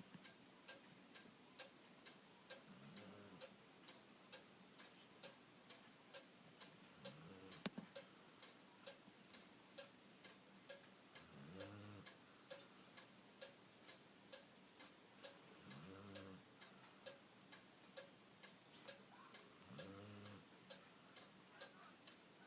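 A sleeping dog snoring faintly, one short rising-and-falling snore about every four seconds, five in all. Under it a clock ticks steadily, about twice a second.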